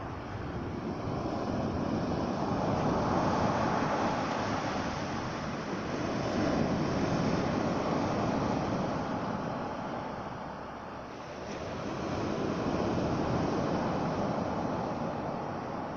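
Sea surf rolling in and washing on the shore, a steady rush that swells and falls back three times.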